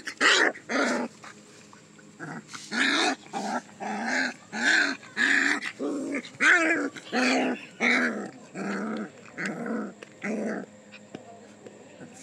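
Puppies fighting, making a quick run of short growl-yelps, about two a second, that stop near the end.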